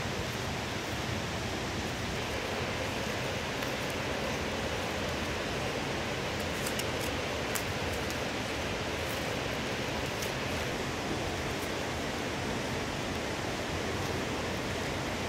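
Steady rush of river water, with a few faint crackles of palm fronds handled while weaving a mat.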